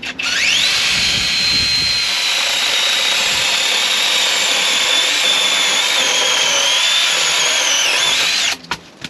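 Seesii SC8B 8-inch cordless mini chainsaw with a brushless motor, spinning up with a quick rising whine and then running steadily at full speed while cutting a laurel branch. Its pitch dips slightly under load late on, and it stops suddenly near the end.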